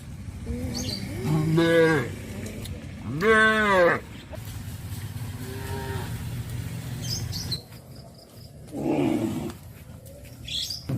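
Cattle of a walking herd mooing: two loud moos that rise and fall in pitch within the first four seconds, then a faint one and a rougher, lower one near the end. Birds chirp briefly between the calls.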